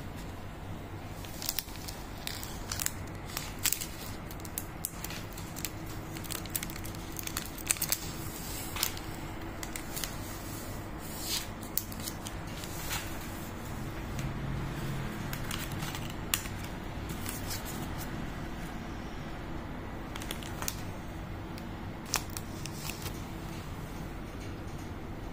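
Chocolate-bar wrapper and its inner foil being torn open and unfolded by hand: irregular sharp crinkles and crackles of wrapper and foil, thinning out near the end.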